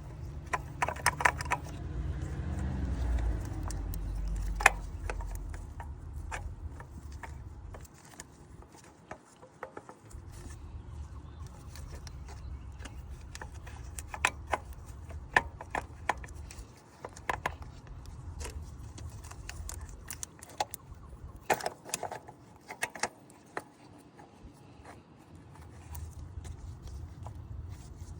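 Scattered metallic clicks and clinks of hand tools and small metal parts being handled during a thermostat replacement, over a low rumble.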